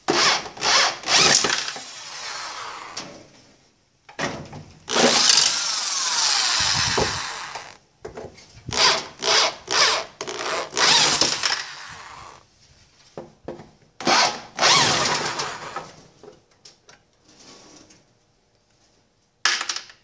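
Cordless power screwdriver running in repeated runs of one to four seconds with short pauses between them, backing out the long mounting bolts of a washing machine's transmission.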